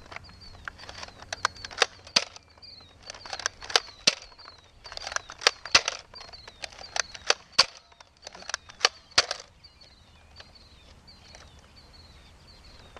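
Sharp clicks and knocks in quick clusters for about nine seconds, then stopping, from a Nerf dart blaster being worked and fired.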